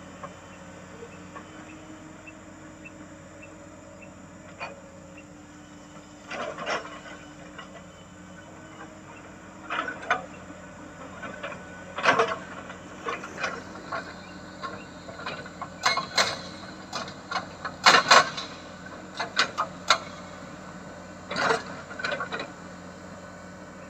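Excavator with a hydraulic rock breaker working hard rock: the engine runs steadily under irregular sharp cracks and knocks of the steel chisel on stone, coming in short clusters from about six seconds in.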